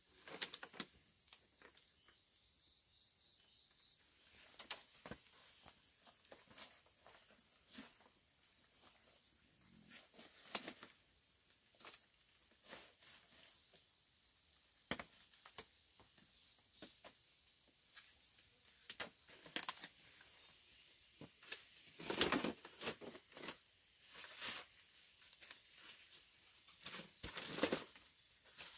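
Intermittent rustling, tearing and snapping of leaves and plant stems being handled, in scattered short bursts with a couple of louder clusters near the end. A thin, steady high-pitched insect drone runs behind.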